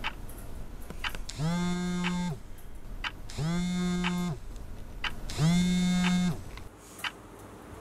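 Mobile phone vibrating with an incoming call: three buzzes of about a second each, roughly a second apart, the motor's hum rising as it spins up and dropping as it stops.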